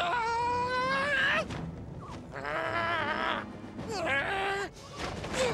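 Cartoon characters' wordless fight cries over background music: a long rising yell in the first second and a half, then a shaky, wavering cry and short gliding grunts.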